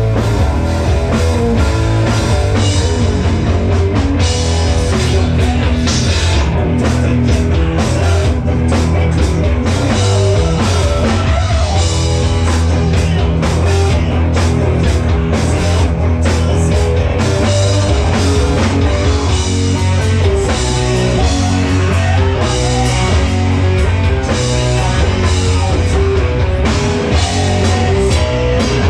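Live rock band playing: guitar and drum kit over a heavy low end, loud and continuous.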